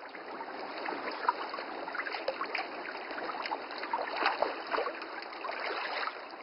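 Water lapping and splashing: a steady wash with many small, quick splashes through it.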